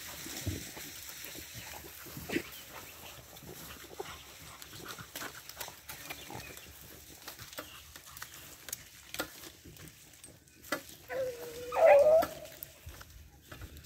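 Pack of hunting hounds working through grass and corn stubble: faint rustling and small clicks of movement for most of it, then a hound bays loudly near the end, its call sliding upward.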